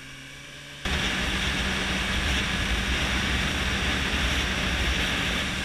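A 2014 Honda CBR650F's inline-four engine running at a steady cruise under a loud rush of wind over a helmet-mounted camera. The sound jumps suddenly much louder about a second in and stays loud.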